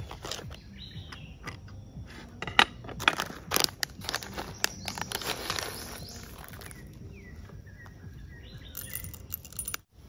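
A run of sharp metallic clinks and knocks, densest in the middle, as of gear or utensils being handled. Birds chirp briefly near the start and again near the end.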